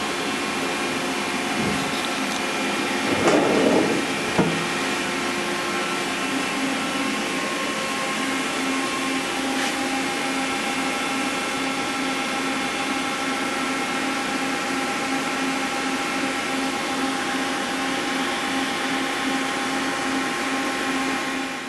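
Mori Seiki NVX5100 vertical machining center's spindle running at speed: a steady mechanical whine made of several fixed tones, which sounds great, with no sign of trouble. There is a brief louder noise about three seconds in, and the tones shift slightly about eight seconds in.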